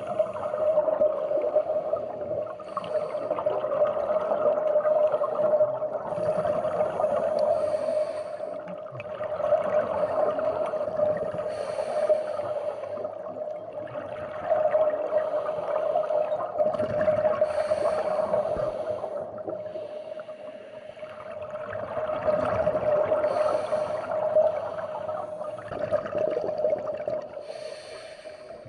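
Scuba breathing heard underwater: a rushing gurgle of exhaled bubbles from a diver's regulator every few seconds, with short hissing inhalations between them, over a steady humming tone.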